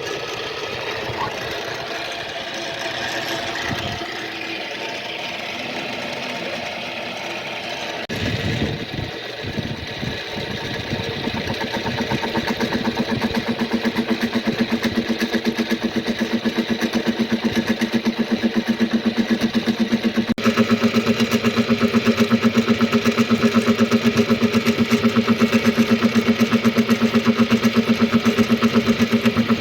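Machine cutting the teeth of a gear blank: a steady motor hum with a fast, even rhythmic pulsing that builds up and grows louder partway through, changing abruptly twice.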